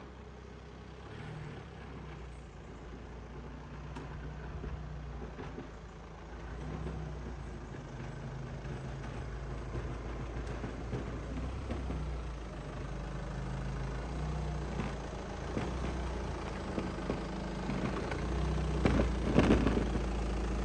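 Audi A6 saloon driving slowly toward the microphone with its engine running, growing steadily louder as it comes close and pulls up.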